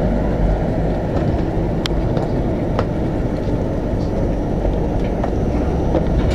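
Udyan Express passenger train running on the rails: a steady rumble with a few sharp clicks scattered through it.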